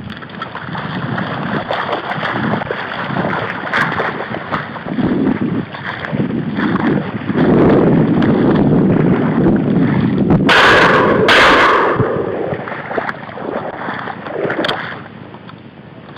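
Footsteps wading and sloshing through shallow marsh water and mud, with wind buffeting the microphone. The sloshing grows louder midway, with two sharp rushes of noise about two-thirds of the way through.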